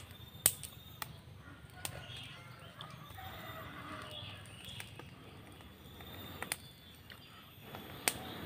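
Small wood fire crackling under a stone slab, with a handful of sharp snaps; the loudest come about half a second in and near the end. Birds chirp faintly in the background.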